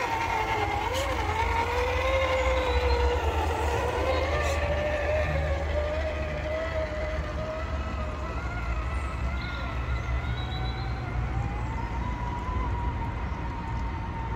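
Whine of a Traxxas TRX-4 1/10-scale crawler's brushed Titan 550 motor and geartrain as it drives. The pitch wanders up and down with the throttle and climbs higher near the end, over a steady low rumble.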